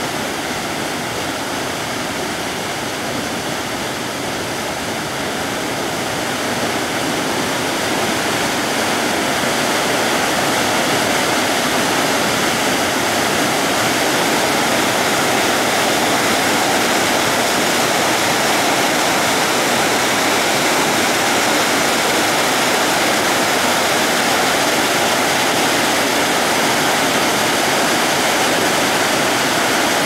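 Waterfall plunging into a rocky pool: a steady rush of falling water, growing louder from about six to ten seconds in and then holding.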